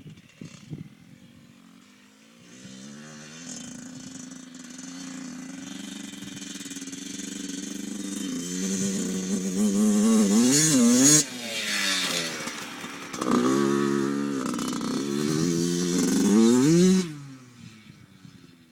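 Small dirt bike engine growing louder as the bike comes closer, then revving hard with its pitch rising and falling as the rider goes through the throttle and gears. The engine sound drops away suddenly near the end.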